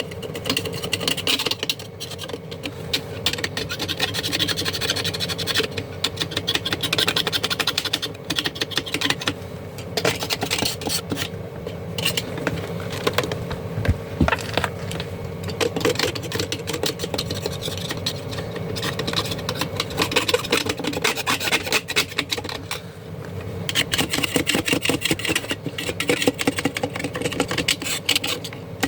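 Repeated rapid scraping and rubbing strokes in uneven runs, over a steady low hum.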